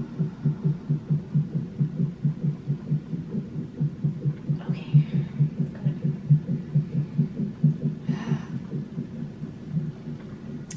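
Baby's heartbeat from a fetal heart monitor's Doppler speaker: a fast, even whooshing pulse at about two and a half beats a second, the normal pace of a fetal heart rate. Two short hisses come through about five and eight seconds in.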